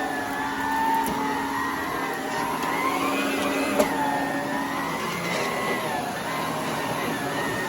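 Electrolux Model 1205 vacuum cleaner running with an electric power nozzle on carpet: a steady motor whine that drifts up and down in pitch, with one sharp click about four seconds in.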